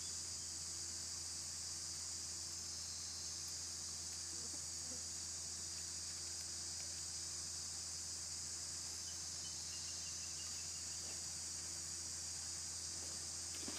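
Steady, high-pitched insect chorus, unbroken throughout, over a faint low hum.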